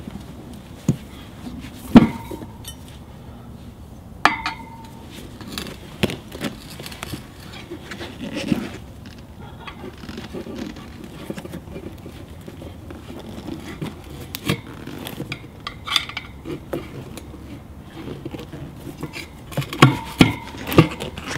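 Steel tire irons clinking and knocking against the rim of a spoked BMW R1200GS rear wheel as a tire bead is levered onto it by hand. The clinks are scattered and irregular; the loudest comes about two seconds in, and a few ring briefly.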